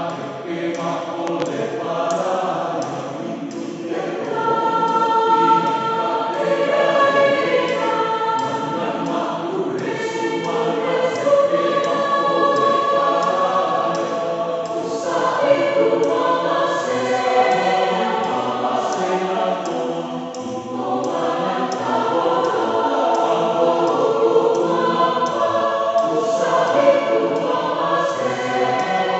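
Mixed choir of men's and women's voices singing together, in long phrases with brief dips in level between them.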